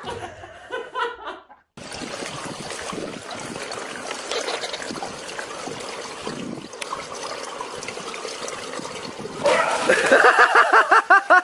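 Steady rush of running water. Near the end it gives way to a loud burst of rapid, repeated voice-like cries, about eight a second.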